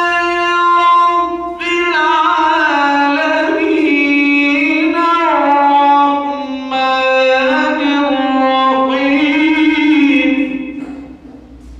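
A young man's voice reciting the Quran in the melodic, chanted style into a microphone: long held notes with ornaments, in three phrases with short breaks for breath. The last phrase fades out near the end.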